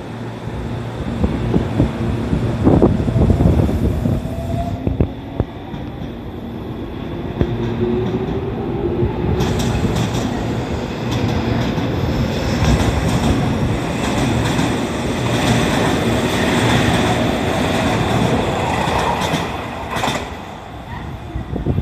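Tobu 30000 series electric train pulling away from the platform, its traction motors whining and rising in pitch as it accelerates, with the wheels clattering and the running noise growing louder before fading near the end.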